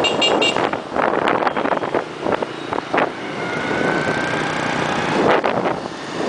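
Wind buffeting the microphone over the running engine of a moving motorbike, with scooter traffic passing close by. Several quick high horn beeps sound right at the start.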